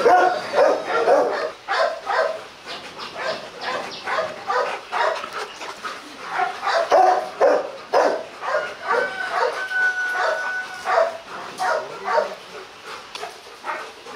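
Rottweilers barking and yipping, short calls repeated throughout, with a drawn-out whine about nine seconds in.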